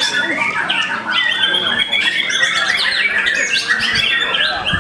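White-rumped shamas (murai batu) singing together in a dense, unbroken overlap of whistles, trills and harsh chatter.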